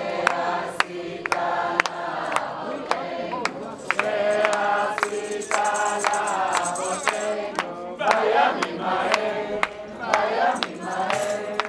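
A large crowd singing together, men and women in unison, with steady rhythmic hand clapping about twice a second.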